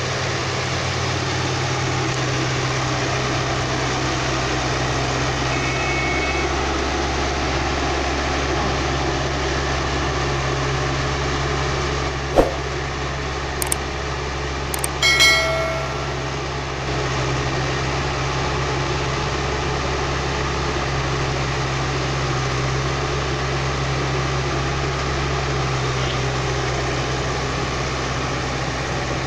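Diesel engine of an L&T Komatsu crawler excavator running steadily as the machine drives down off a truck's flatbed. About halfway through there are a few sharp clicks, then a brief ringing chime.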